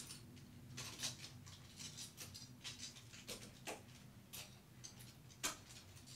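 Clothes hangers clicking and scraping along a metal closet rail as garments are pushed aside: irregular sharp clicks, the loudest about five and a half seconds in, over a faint low hum.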